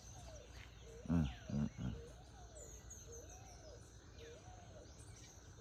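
Birds calling: a low arched whistle repeated every half second or so, and a quick run of high descending chirps a few seconds in. A brief voice is heard about a second in.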